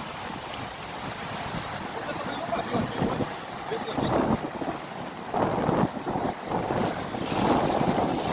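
Wind buffeting the microphone over the wash of surf on a beach, swelling louder several times in the second half.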